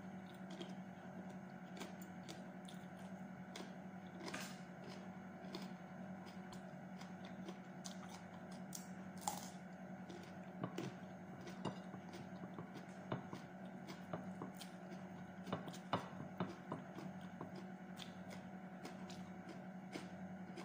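Close-up eating of raw cucumber and leafy greens: crisp crunching bites and chewing, heard as sharp irregular crunches scattered throughout, over a steady low hum.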